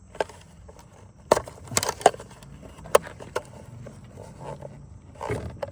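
Hand-handling noises as a thin plastic cup is held against an outboard motor's fuel filter bowl and the bowl is worked loose by hand: scattered sharp clicks and knocks, the loudest about two seconds in.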